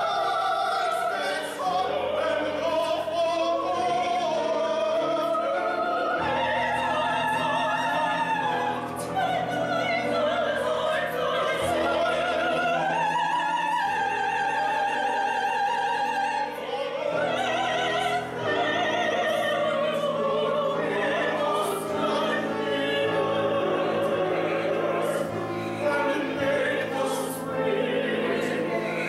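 Opera singers, men and women, singing together in an ensemble.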